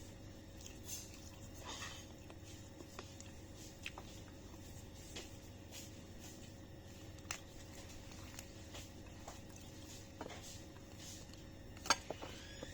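Scattered light clicks and taps of kitchen utensils and dishes being handled, with a sharper click near the end, over a steady faint hum.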